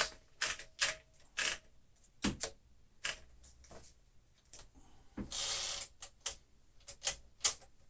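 Clicks and knocks from the mechanism of a 1964 Smith-Corona Sterling manual typewriter, coming irregularly rather than in a typing rhythm, as the margins are set. About five seconds in there is a short rasping noise.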